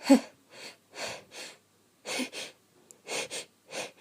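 A woman's sneeze build-up: a run of short, gasping breaths, a few of them voiced "ah"s, the first the loudest. The sneeze does not come yet.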